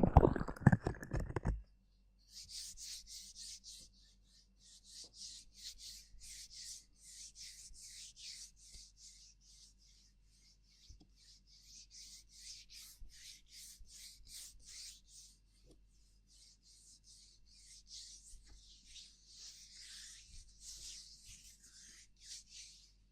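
A loud low rumbling with thumps for the first second and a half, then ASMR friction sounds: quick, even rubbing strokes, three or four a second, high and scratchy.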